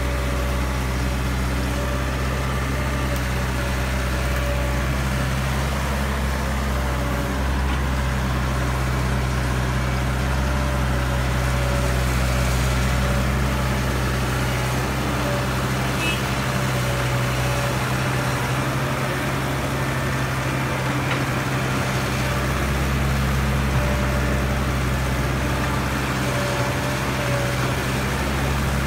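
Caterpillar E120B excavator's diesel engine running steadily as it digs and loads soil into a dump truck, a constant low drone with an even pitch.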